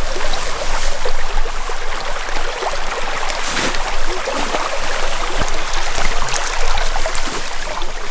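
A small creek running, with the swish and crunch of feet and legs pushing through tall grass along its bank.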